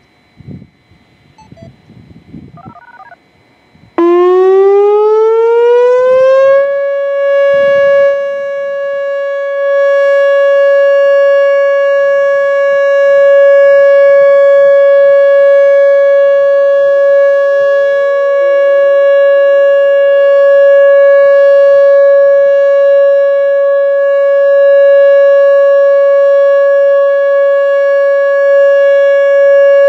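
Whelen WPS-2910 electronic siren sounding its steady alert signal. The loud tone starts about four seconds in, rises in pitch for a couple of seconds, then holds one steady pitch.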